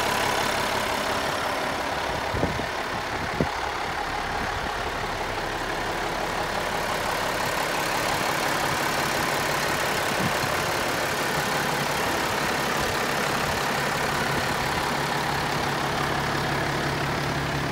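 2010 Kenworth T800's diesel engine idling steadily, heard up close at the open engine bay, with two brief knocks about two and a half and three and a half seconds in.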